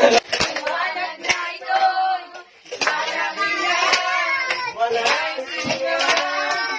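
Children and adults singing a Filipino Christmas carol together, with hand claps, and a short break in the singing about two and a half seconds in.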